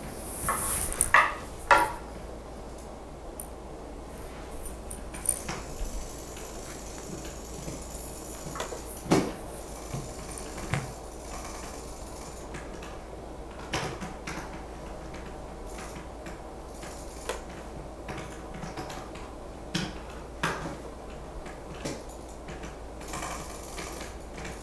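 Scattered taps, clicks and plastic crinkles from laminating pouches and cardstock being handled and fed through a Scotch thermal laminator, over a steady low hum. A few louder knocks come in the first couple of seconds and again about nine seconds in.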